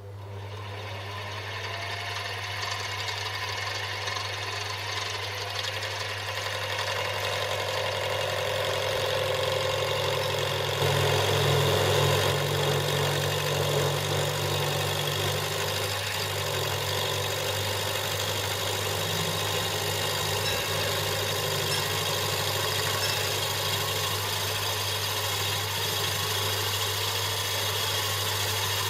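Metal lathe starting up and running steadily while machining a part held on the faceplate. It builds up over the first few seconds and gets louder about eleven seconds in.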